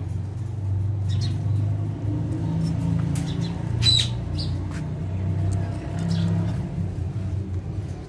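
Alexandrine parakeets giving a few short, sharp chirps and clicks, the sharpest about four seconds in, over a steady low rumble.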